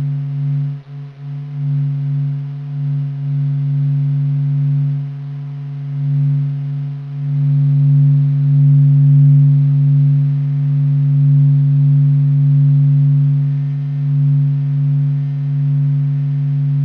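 Sonification of the Sun's surface vibrations and oscillations: a steady, deep hum of a few held tones that slowly swells and dips in loudness.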